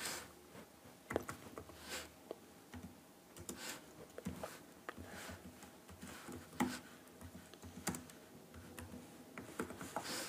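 Typing on an HP laptop's keyboard: faint, irregular key clicks and taps that come in short runs with brief pauses between them.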